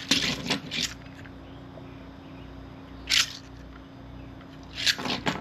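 Plastic 3D-printed fidget toys being handled: a cluster of short clicks and scrapes in the first second, one more about three seconds in and a few near the end, over a faint steady hum.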